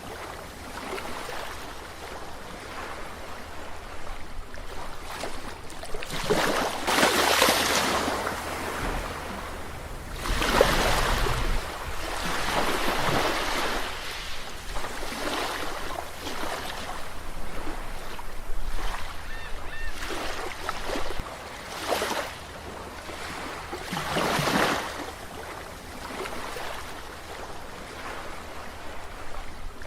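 Ocean waves breaking and washing on a shore, a steady rush of surf with louder surges every few seconds as individual waves break.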